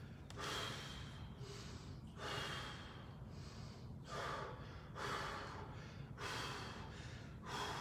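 A man breathing heavily during a stretch: about six audible breaths, roughly one every second or so.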